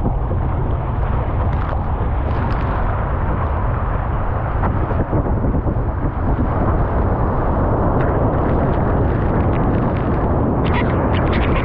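Loud, steady rushing of water and wind buffeting the microphone as a one-person outrigger canoe surfs a wave. Spray crackles against the camera near the end.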